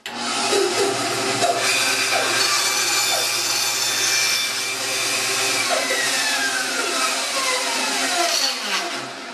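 Small benchtop bandsaw starting up and cutting through a thin brass tube held in a wooden jig. A little past halfway the motor hum stops and a falling whine follows as the saw winds down.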